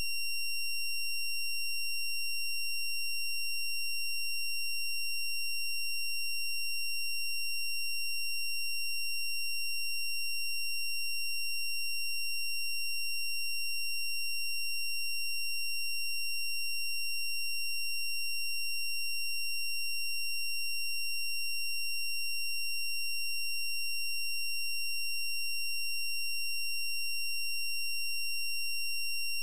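A steady, unchanging high-pitched electronic tone with overtones over a faint low hum.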